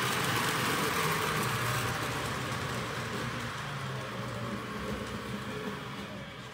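HO scale model locomotive running on the track: a steady electric-motor hum with wheel-on-rail rumble that slowly fades as the train goes into a tunnel.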